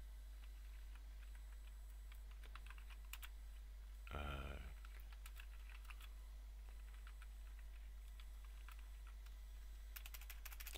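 Faint computer-keyboard typing: scattered, irregular key clicks as a line of code is typed. About four seconds in comes one brief voiced sound from the typist, the loudest moment.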